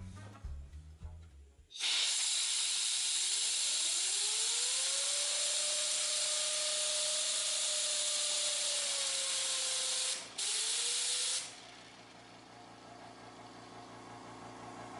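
Compressed air hissing loudly through a 3D-printed model gas turbine engine, its rotor spinning up with a rising whine that then holds steady. The air cuts out briefly about ten seconds in, bursts back with a short rising whine, and stops, leaving a much fainter hiss.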